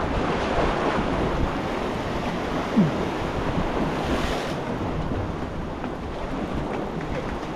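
Steady wash of surf against jetty rocks, with wind buffeting the microphone.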